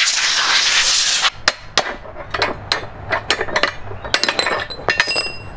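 Knocks and clinks from the metal fittings of a ship's porthole being handled, a string of sharp separate knocks, with a short metallic ring about five seconds in. A loud rushing noise comes before them in the first second or so.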